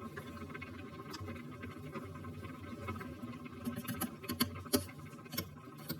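Quick, irregular light clicks and taps, coming thick in the second half, over a steady low hum.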